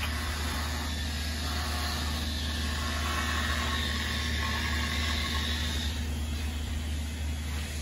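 Steady low hum of a motor running, with faint high whining tones over an even background noise.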